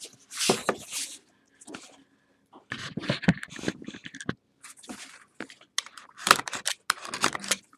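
Cardboard card box being handled, pulled from its larger outer box, with irregular scraping, rustling and tapping in bursts and a short pause about a second in.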